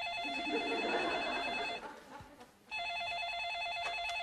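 Cordless telephone ringing with an electronic warbling trill: two rings of about two seconds each, a second apart.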